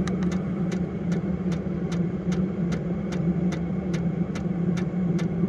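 VEVOR 5 kW diesel heater running steadily after throttling down, its combustion fan giving a low, even hum, with the fuel dosing pump ticking regularly about three times a second.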